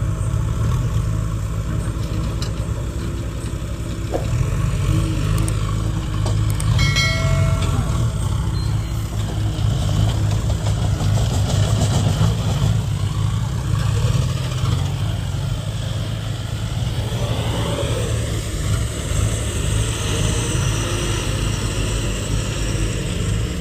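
Diesel engines of JCB 3DX backhoe loaders and a loaded Ashok Leyland dump truck running, a steady heavy rumble. A short tone sounds about seven seconds in, and engine pitch rises and falls later on as the truck pulls away.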